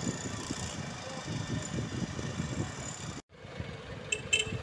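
Street traffic with vehicle engines running. The sound drops out briefly about three seconds in, and a few short sharp clicks come a little after four seconds.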